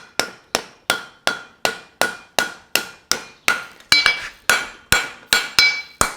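Steady hand-hammering of a hot steel horseshoe on an anvil, about two and a half blows a second, each strike with a short metallic ring. The farrier is shaping and cleaning up the wedge heel of the shoe.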